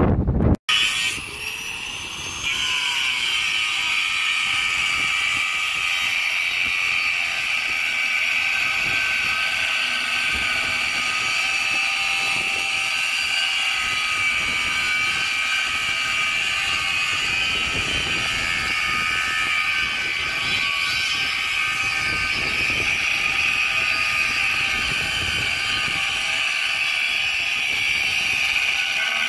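Corded handheld angle grinder with a thin cutting disc, spinning up in a rising whine within the first couple of seconds, then biting into a rusty steel pipe and cutting steadily with a loud, high metal-cutting whine.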